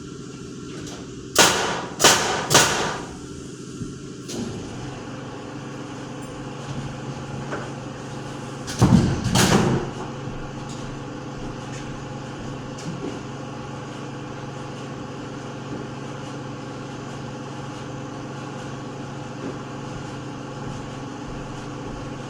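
Construction work: three sharp, loud knocks about half a second apart, then two heavier thuds near the middle, over a steady machine hum.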